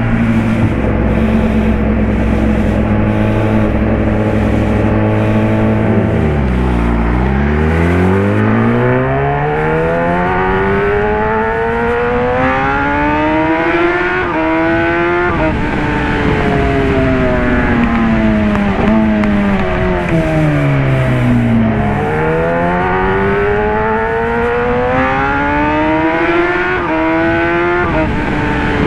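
Kawasaki Ninja ZX-10R inline-four running through an SC-Project CRT slip-on exhaust. It holds steady at first, drops in pitch about six seconds in, then accelerates with rising pitch through a few quick, quickshifter upshifts, each a brief dip in pitch. It eases off with falling pitch and accelerates through more upshifts near the end, with tyre and wind noise underneath.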